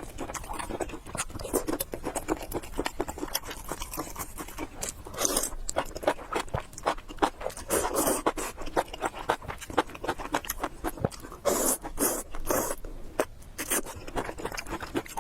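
A person eating noodles close to the microphone: rapid wet chewing and mouth clicks throughout, with a few longer noisy bursts between them.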